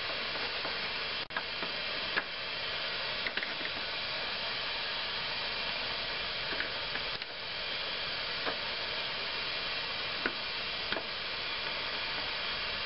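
A steady hiss, with scattered light metallic clicks as a wrench turns the heat-loosened steel brake line fitting out of the brake hose.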